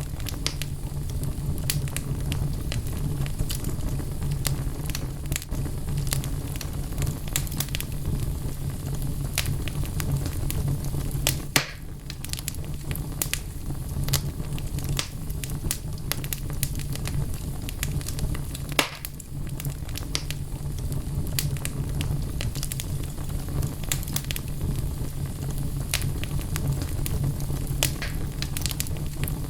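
Wood fire burning in a fireplace: a steady low rumble of flame under frequent sharp crackles and pops of the burning logs, with a louder pop a little before the middle and another about two-thirds through.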